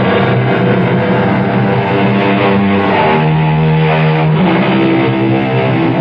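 Radio-drama music cue: loud sustained chords that come in suddenly and shift about three seconds in and again about a second later.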